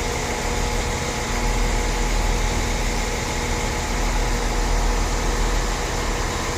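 Diesel multiple-unit train idling at a station platform: a steady engine hum with a constant low drone that grows slightly stronger about a second and a half in.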